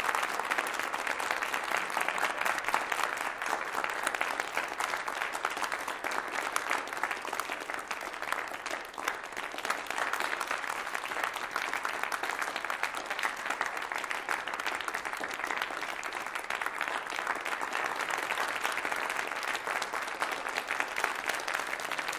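Crowd applauding steadily, a dense patter of many hands clapping, easing slightly about eight seconds in before building again.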